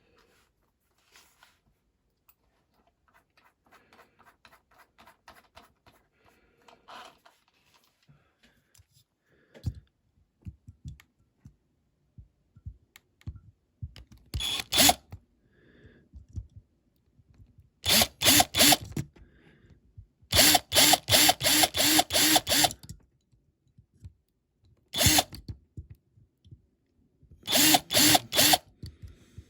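Small power drill run in short pulsing bursts, five of them in the second half, drilling out the rivets that hold a diecast model car together. Faint handling clicks come before the first burst.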